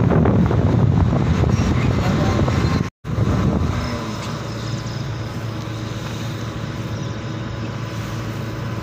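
Car driving on a road: loud rushing wind and road noise for the first three seconds, then a sudden cut to the steadier, quieter hum of the car heard from inside the cabin.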